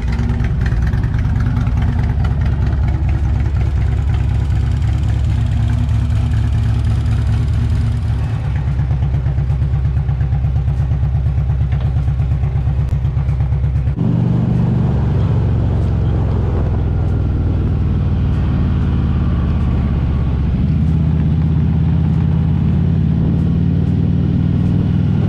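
2014 Harley-Davidson Street Glide Special's Twin Cam V-twin engine running. For the first half it idles with a regular low pulse. From about halfway it runs steadily as the bike is ridden along a road.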